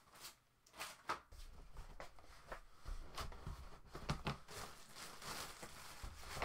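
Rustling and light knocks of packing material being handled inside a cardboard box, with scattered short clicks and a few dull knocks about three to four seconds in.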